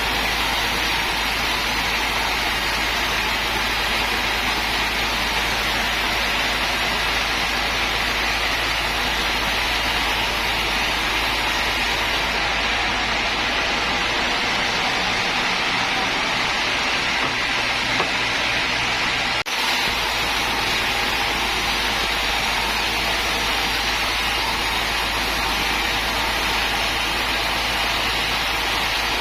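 Sawmill machinery running with a steady, even hiss-like noise, with a brief dip about nineteen seconds in.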